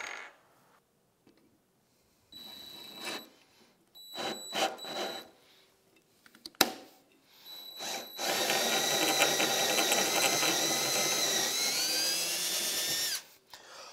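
Cordless drill driving a drill bit into a cast aluminium engine case to drill out a stripped thread hole. A couple of short trigger bursts and a click come first, then about five seconds of steady drilling, whose whine sags in pitch near the end before stopping.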